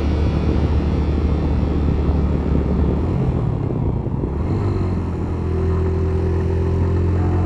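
Engine of a small engine-driven saw running steadily. Partway through its note unsettles and shifts, then settles again into a steady, even drone.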